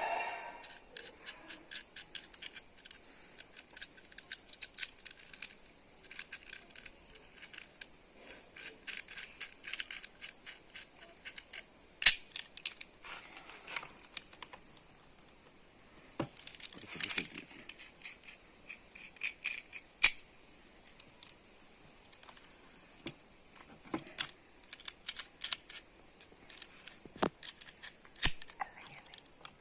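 Small metal parts of a chainsaw adapter being handled and fitted onto a hand angle grinder: repeated light metal clicks and rattles, with a few sharp knocks, the loudest about twelve and twenty seconds in.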